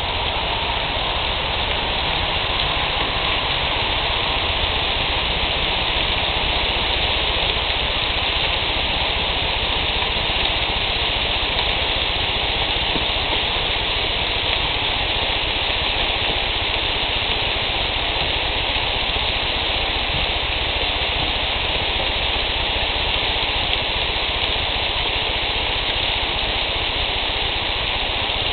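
Steady sizzling of bacon-wrapped quail breasts cooking on a grill, a continuous rain-like hiss with no distinct pops standing out.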